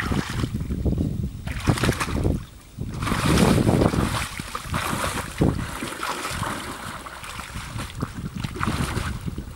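Splashing and sloshing of people wading fast through knee-deep muddy water, hands slapping and churning the surface; loudest about three to four seconds in.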